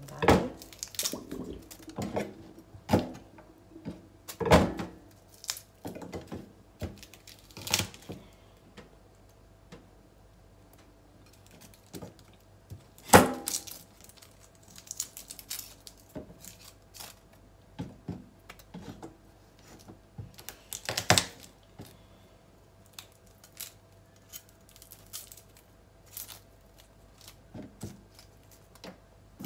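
Kitchen knife knocking and clicking on a wooden cutting board as garlic cloves are peeled and cut: scattered, irregular sharp knocks with quiet gaps, two of them louder, near the middle and about two-thirds of the way through.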